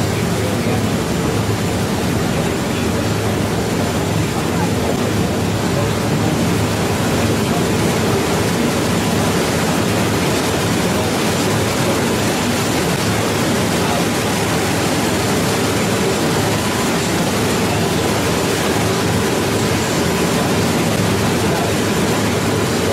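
Steady rush of wind and sea with the drone of a high-speed catamaran's engines, heard on board in open water.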